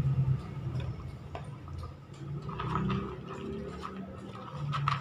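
A Rottweiler eating dry kibble from a plastic bowl: irregular crunching and clicking as it chews and its muzzle pushes the pellets about in the bowl.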